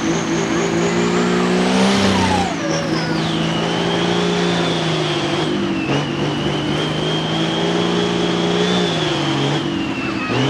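Hot Farm pulling tractor's turbocharged diesel engine running hard under load, its turbocharger whistle climbing for about two seconds as boost builds, then dropping sharply and holding steady over a constant engine note.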